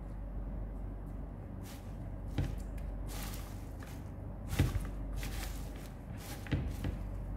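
Hands rustling and crackling through a plastic basin of fresh gergir (rocket) leaves as they are sorted, with about three soft knocks against the basin. A low steady hum runs underneath.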